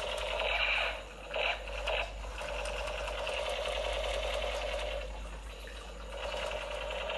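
Toy machine gun's firing sound effect: a steady, buzzing rattle that dips briefly about a second in and again a little past five seconds.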